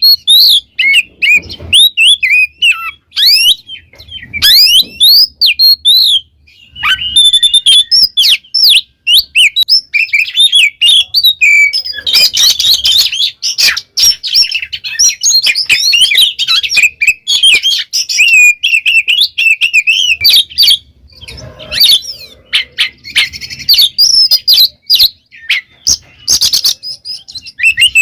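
Oriental magpie-robin singing loudly and without pause: a rapid run of varied whistles, chirps and slurred notes, growing denser and more jumbled about twelve seconds in and again in the last few seconds.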